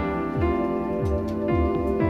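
Instrumental background music: held chords over a steady beat of about two beats a second.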